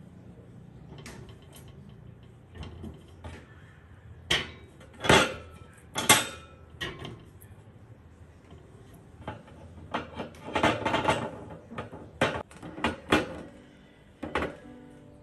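Hard knocks and light metallic clinks as potatoes and eggs are set down into white metal wire baskets on a countertop and the baskets are handled. A few louder knocks come about four to six seconds in, then a quick run of small clinks later on.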